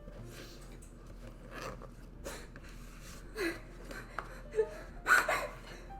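A few short, breathy vocal sounds, like gasps or stifled laughs, with the loudest about five seconds in.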